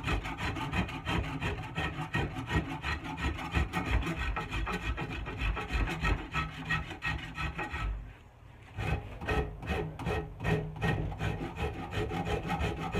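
Rapid back-and-forth strokes of a Stanley hand shaping tool rasping the wood of an axe handle, rounding off the corners of its palm swell. The strokes pause briefly about eight seconds in, then carry on.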